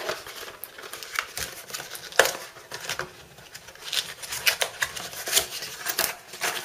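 Small cardboard box handled and opened by hand: the flap tugged open and the box tilted, with scraping and rustling and irregular sharp clicks, the loudest about two seconds in.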